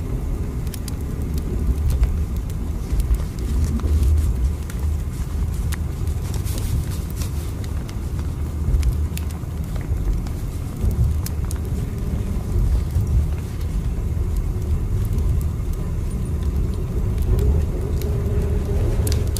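Steady low rumble of a moving train, swelling and easing, with scattered faint clicks and rattles.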